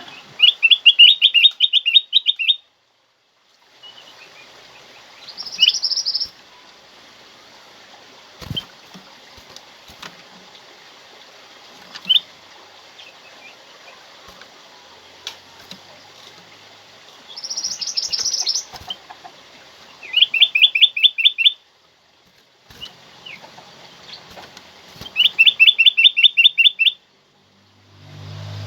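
Ruby-throated bulbul (kutilang emas) calling: three loud, fast runs of a dozen or so clipped notes each, with two shorter, higher phrases and a few single chips between them, over a faint steady hiss. The sound cuts out completely twice for about a second.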